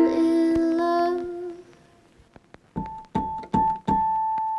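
Background music: a held chord dies away, then after a brief gap a piano plays a few short repeated notes on one pitch.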